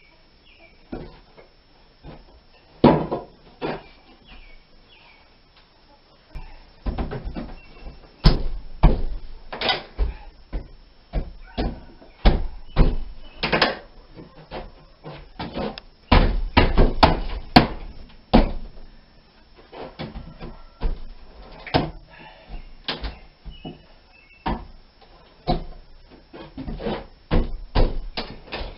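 Steel pry bar banging and levering against wooden window framing and sheathing, tearing it loose: a run of irregular knocks and bangs, sparse at first and thickest from about a quarter of the way in to past the middle.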